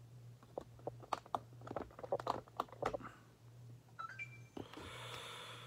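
Faint scattered clicks and light crackles close to the microphone, over a steady low hum, with a soft hiss near the end.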